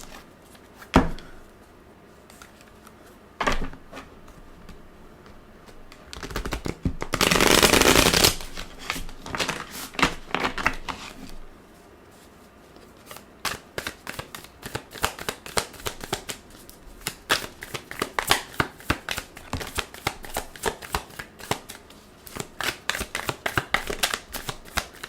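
A deck of Light Seer's Tarot cards being shuffled by hand: a few single taps early, a dense rush of riffling cards about seven seconds in, then a long run of quick flicking card sounds, several a second, through the second half.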